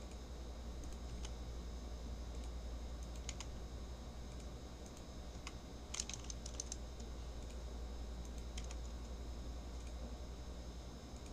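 Faint computer keyboard typing: scattered key clicks with a quick run of them about six seconds in, over a low steady hum.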